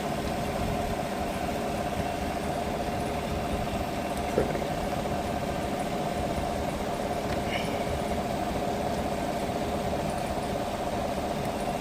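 Steady hum of a 2016 Chevy Suburban idling with its climate fan running, with one light click about four seconds in.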